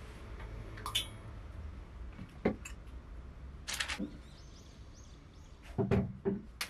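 Metal hangers clinking against a metal pipe clothes rail, then several knocks and bumps near the end as the pipe clothes rack is lifted and moved.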